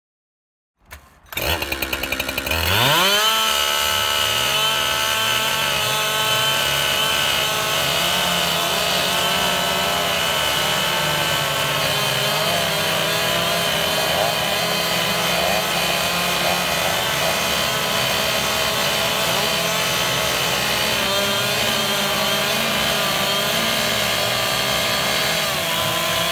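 Several two-stroke chainsaws, Stihls among them, running together at high revs. They come in suddenly about a second in, climb in pitch over the next second or two, then hold a steady, loud drone of many overlapping engine notes.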